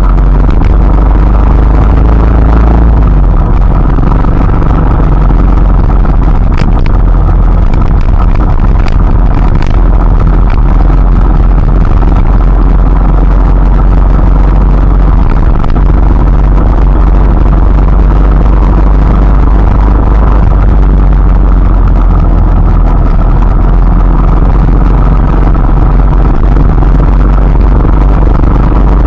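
Steady rain with a loud, deep rumble underneath and little hiss, with a few faint drop-like ticks now and then.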